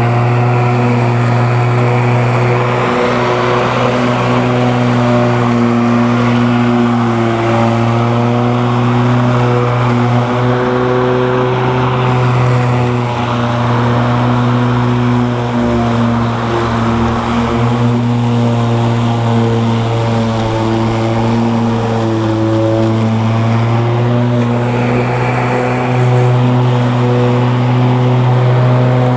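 GreenWorks 20-inch, 12-amp corded electric lawn mower motor running steadily with a loud hum, dipping slightly in pitch now and then.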